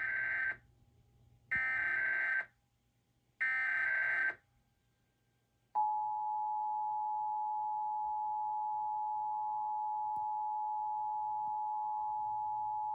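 Emergency Alert System test signal: three short bursts of SAME header data tones, about a second each. About six seconds in, the steady two-tone EAS attention signal (853 and 960 Hz) starts and holds.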